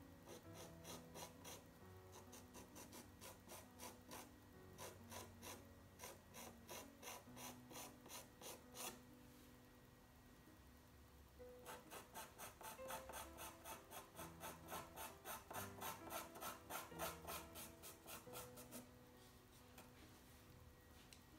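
Pastel pencil hatching on toned paper: quick, rhythmic scratchy strokes, several a second, in two long runs with a pause of about two seconds near the middle. Faint background music underneath.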